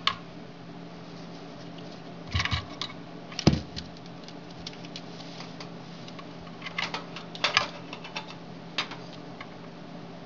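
Scattered light clicks and taps of small hard objects being handled on a workbench, with one heavier knock about three and a half seconds in, over a steady low hum.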